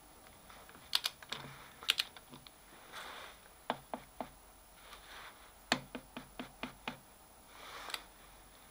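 Sharp metal clicks from a click-type torque wrench on a milling vise's screw as the vise is tightened toward 60 Nm: a couple of single clicks, then short quick runs of clicks about four or five to a second, with softer scraping between.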